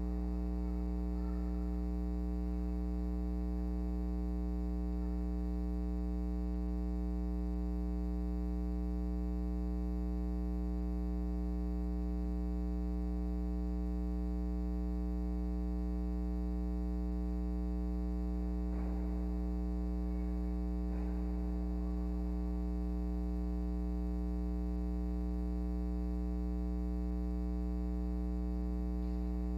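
Steady electrical mains hum with a buzzing stack of overtones, unchanging throughout. Two faint brief sounds occur about two-thirds of the way through.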